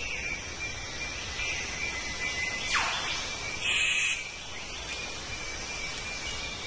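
Steady chorus of rainforest insects with a high, even trill. About three seconds in there is a quick falling swish, and just after it a harsh, rasping burst lasting about half a second.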